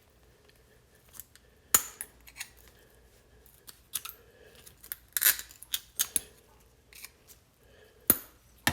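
Scattered sharp clicks and snaps of a tool prying at the plastic parts of an opened Amazon Echo Dot smart speaker, with a cluster of small clicks about five seconds in and the sharpest snaps a couple of seconds in and near the end.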